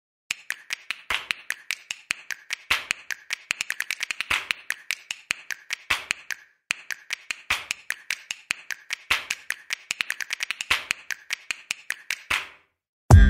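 A fast stream of sharp, dry clicks, uneven but repeating, with a louder click about every second and a half. It breaks off briefly about halfway through and stops just before loud electronic music comes in near the end.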